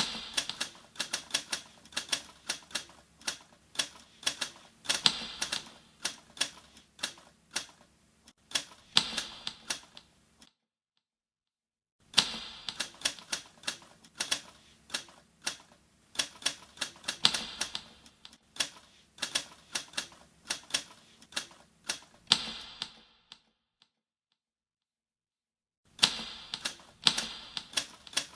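Typewriter keys typing in quick runs of sharp clacks, several strikes a second, stopping dead twice for a second or more.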